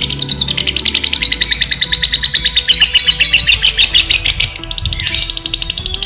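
Lovebird singing a long, rapid chattering trill of fast repeated high chirps, dipping briefly about two-thirds of the way through. It is the kind of song that breeders take as promising for 'konslet', non-stop long singing.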